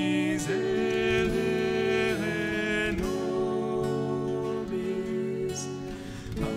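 A slow sung Mass setting: a woman's singing voice on held notes that change about once a second, accompanied by acoustic guitar and keyboard, with a brief pause for breath near the end.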